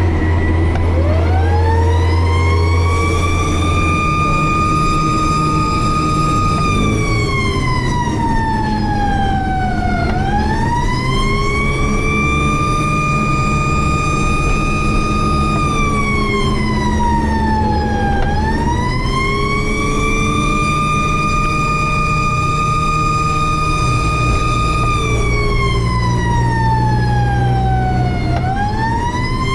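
Fire tanker truck's siren wailing: each cycle rises over a couple of seconds, holds a high tone for several seconds, then slides slowly down, about three times, with the truck's engine rumbling beneath.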